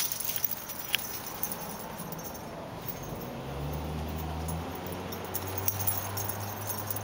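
Kittens scampering and tussling through dry leaves and garden plants, a light scattered rustling and crackling. A low steady hum comes in about three seconds in and carries on underneath.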